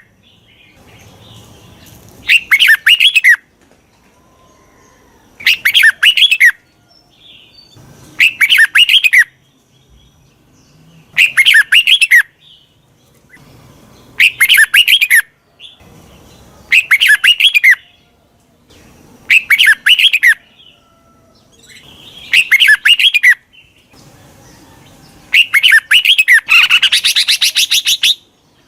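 Red-whiskered bulbul calls: a short burst of several quick, high chattering notes repeated at even spacing about every three seconds, with a longer burst near the end. This is a lure call used to draw in wild bulbuls and set caged birds singing.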